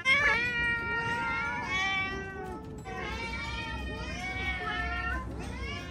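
Domestic cats meowing insistently: long, drawn-out calls that overlap one another almost without a break, the loudest starting right at the beginning.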